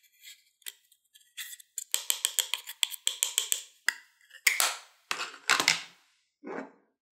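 A thin metal tool scraping and picking pressed eyeshadow out of a plastic palette: scattered scratches, then a rapid run of short scraping strokes, several a second. A few louder knocks and a duller thud follow in the second half.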